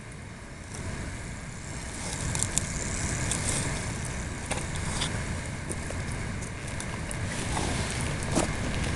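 Steady low outdoor rumble with scattered light clicks and rustles, growing a little louder about two seconds in.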